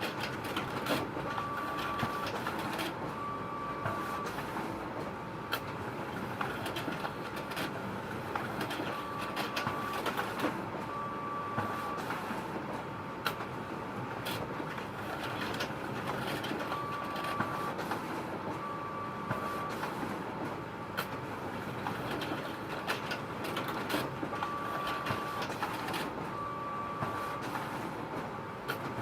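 Photocopier running continuously: a steady mechanical whir with scattered clicks. Every seven to eight seconds comes a pair of short tones, each about half a second to a second long, about a second apart, repeating in the same rhythm.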